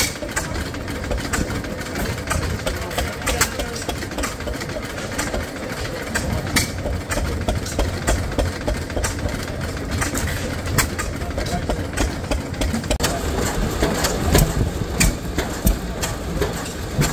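Vintage stationary engine running, with sharp firing knocks at uneven intervals over a low rumble.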